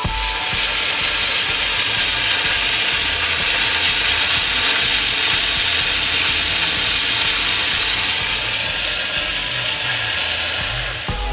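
BMW 335i's electric radiator cooling fan running flat out: a loud, steady rushing "hurricane", with a low music beat underneath. The video ties this full-speed fan to a fault in the thermostat and its connector.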